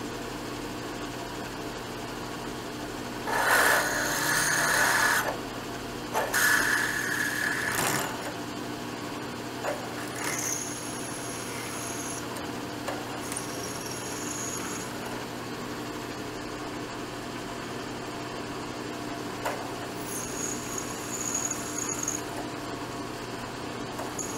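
Milling machine spindle running steadily while a long drill bit bores into a metal workpiece. Two loud bursts of grinding cutting noise come a few seconds in, followed by several high-pitched squeals from the bit as it cuts deeper.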